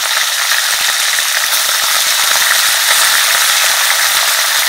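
Chunks of raw buffalo meat frying in hot oil in an iron wok: a loud, steady sizzle full of fine crackles, the meat freshly added to the pan.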